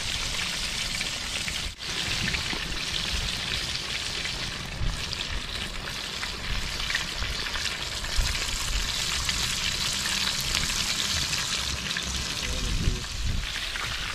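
Fish deep-frying in hot oil in a plough-disc pan over a wood fire: a steady, dense sizzle with fine crackling throughout, briefly cut off about two seconds in.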